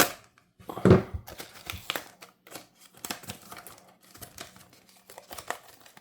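Cardboard box being handled and opened by hand: crackling, scraping and tearing of the cardboard and packaging, with sharp clicks throughout and a loud knock about a second in.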